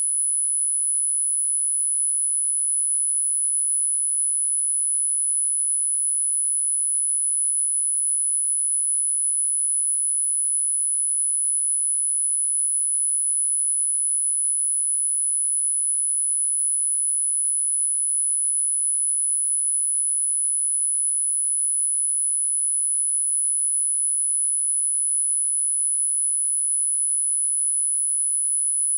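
A single very high-pitched pure sine tone held perfectly steady at one pitch and level: the tone of a subliminal frequency audio track.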